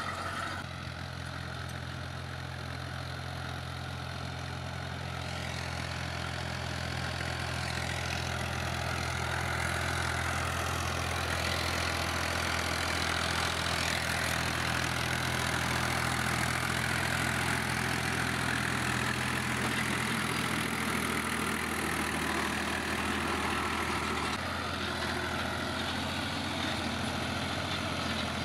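New Holland Ghazi tractor's diesel engine running at a steady speed under load while it drives a rotary tiller through the soil. It grows louder as the tractor comes close, then drops back a little near the end.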